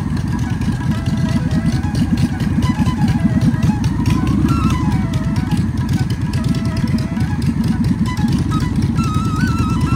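Motorcycle engine running steadily with a rapid low pulsing, under music with a wandering melody.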